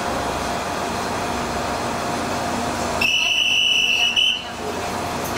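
Diesel railcar idling with a steady hum. About three seconds in, a high-pitched electronic buzzer sounds for just over a second, steps up slightly in pitch at the end, then cuts off.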